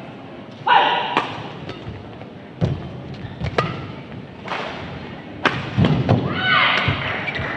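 A badminton rally: sharp racket strikes on the shuttlecock several times, with thudding footfalls on the court. Shoe soles squeak on the court floor near the end.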